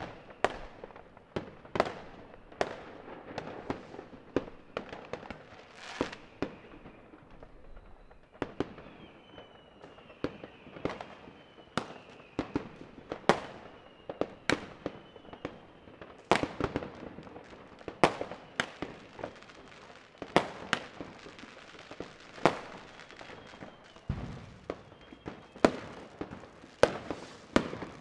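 New Year's fireworks and firecrackers going off: a continual series of sharp bangs at uneven spacing, about one or two a second, some loud and some distant. Faint falling whistles come in and out between the bangs.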